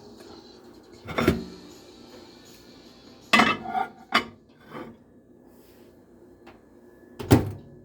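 Hard objects being handled, knocking and clattering: about five separate knocks, a cluster in the middle and the loudest near the end.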